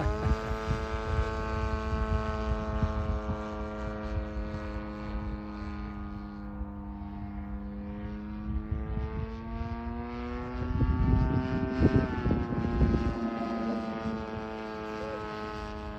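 The DLE 55 single-cylinder two-stroke gas engine of a Slick 540 model aerobatic plane in flight, a steady propeller drone whose pitch sags slowly and then climbs again about ten to twelve seconds in. A low rumble swells from about eleven to thirteen seconds.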